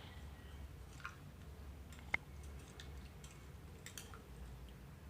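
Faint, scattered small clicks and ticks from kitchen utensils being handled, with one sharper click about two seconds in, over a low steady room hum.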